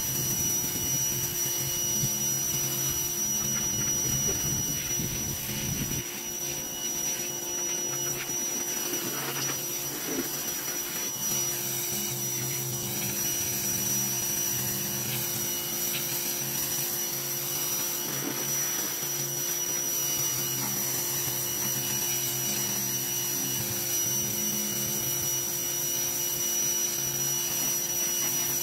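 Greenworks pressure washer running steadily, with a constant motor whine and the hiss of the high-pressure water jet spraying against a pickup truck's body.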